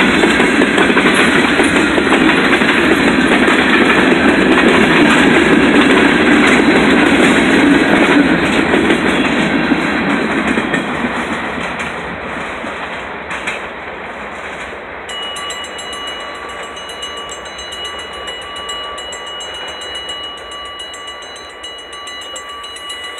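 Freight cars rolling past at a grade crossing, wheels clattering over the rail joints, the noise dying away about ten seconds in as the end of the train goes by. Then the crossing's warning bell rings on steadily and evenly.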